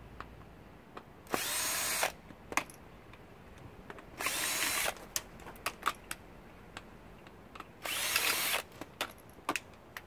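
Power drill-driver backing out screws from a dishwasher in three short runs of under a second each, with light clicks and taps between.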